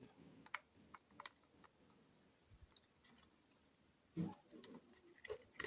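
Faint scattered clicks and taps of plastic robot parts being handled as a motor is pressed into the chassis, with one slightly louder soft knock about four seconds in.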